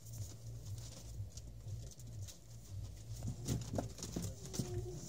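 Lancashire Heeler puppies scuffling with a cardboard box: light scrabbling and rustling on cardboard and newspaper as a puppy tugs a toy through a hole. In the last couple of seconds come a run of sharper knocks and a few brief squeaks.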